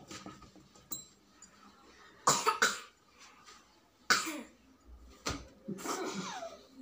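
A person coughing in several short, loud bursts: a quick run of about three a little after two seconds in, then single coughs around four and five seconds, and a longer one near six seconds.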